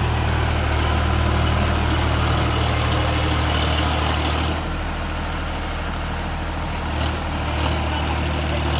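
Tractor diesel engine running steadily with a low, even hum; the sound eases a little about halfway through.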